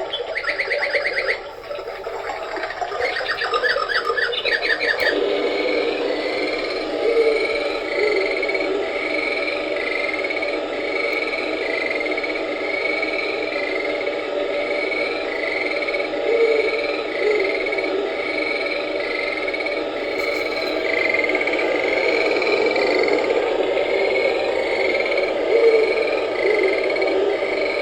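Timex T232 alarm clock playing one of its built-in sound effects, a nature-style track of animal calls. Fast trills come in the first few seconds, then a short rising chirp repeats about once a second over a steady hiss.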